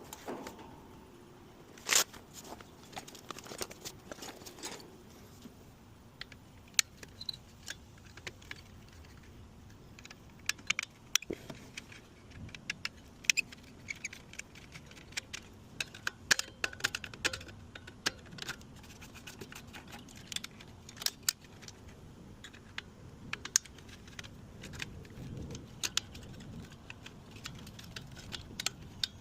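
Irregular metallic clicks and clinks of hand tools, screws and parts working on a metal AC disconnect box, scattered through with a sharper knock about two seconds in.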